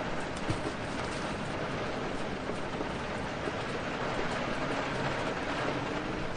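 Steady rain: an even hiss with scattered ticks of drops.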